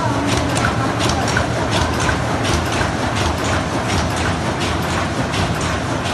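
ZSL-31 open-cam paper cup forming machine running, its cam-driven forming stations making a steady rhythmic clatter over a constant low hum.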